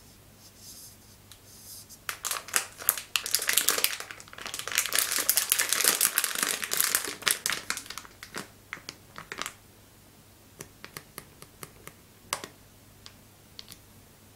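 Plastic packaging of a multipack of fruit ice sticks crinkling as it is handled and turned. The crinkling starts about two seconds in, is densest for the next six seconds, then thins to scattered crackles.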